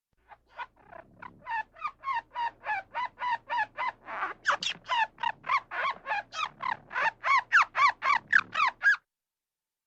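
An animal giving a rapid series of short, chirping calls, about three to four a second, that stops about nine seconds in.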